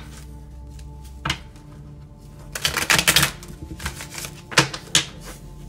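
A deck of tarot cards being shuffled by hand: separate sharp card snaps, with a quick run of them about three seconds in. Quiet background music underneath.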